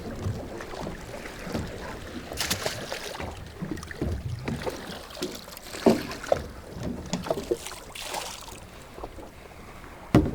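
Wind buffeting the microphone on a small boat rocking at anchor, with scattered knocks and clunks of gear against the boat, a brief hiss about two and a half seconds in, and a sharper knock near the end.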